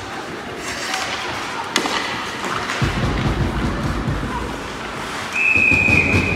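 Ice hockey rink sounds: a sharp crack about two seconds in, then a low rumble of skates and play against the boards from about three seconds in. A steady high whistle starts near the end.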